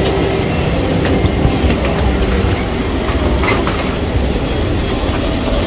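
Steady low rumble with scattered clicks and knocks from footsteps and bags as passengers file through an airliner's door onto the jet bridge.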